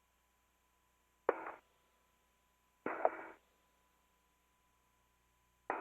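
Three short bursts of radio static on the spacewalk communications loop, each opening with a click as a microphone keys, about a second in, about three seconds in, and near the end.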